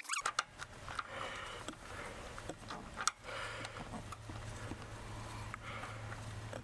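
Small irregular metal clicks and knocks of hand tools and fittings being worked on an engine's oil feed line bolts, with one sharper click about three seconds in, over a steady low hum.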